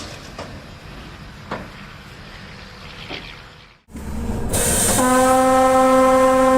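A train horn sounds one long steady blast starting about five seconds in. Before it there is a short noisy stretch with a few knocks, which cuts off suddenly.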